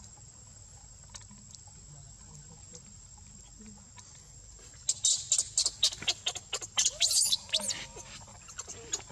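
Baby macaque screaming in distress: a rapid run of shrill, high-pitched squeals that starts suddenly about five seconds in, after a quiet stretch with only a faint rustle of dry leaves.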